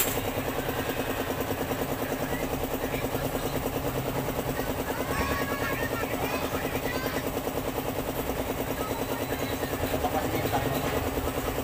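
A small engine running steadily in the background, with an even, rapid throb.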